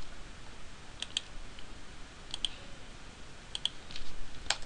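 Computer keyboard keys clicking: three quick pairs of key clicks about a second apart, then one sharper click near the end, as a file is copied and pasted.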